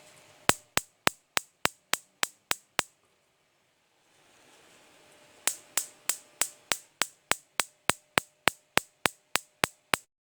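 Gas stove electronic spark igniter clicking, about three or four sparks a second. It runs in two bursts: a short one, a pause of a couple of seconds, then a longer one.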